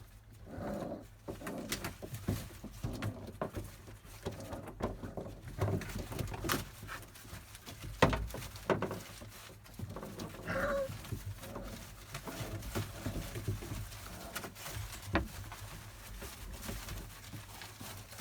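Month-old Labrador Retriever puppies playing: soft whines and grunts mixed with many small knocks and scuffles, the sharpest knock about eight seconds in and a short cry at about ten and a half seconds.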